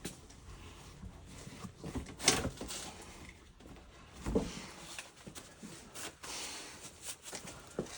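Scattered light knocks and clicks of hands handling the new gas shut-off valve, fittings and tools, with two louder knocks about two and four seconds in.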